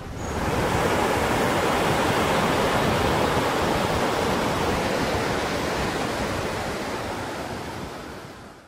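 Steady rush of sea surf washing on a shore, swelling in over the first moment and fading out near the end.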